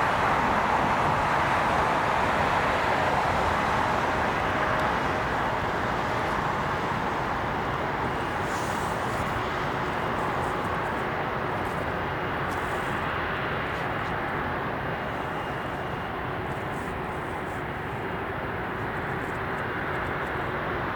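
Jet airliner engines roaring, loudest at the start and slowly fading as the aircraft moves away, with a faint steady whine under the roar.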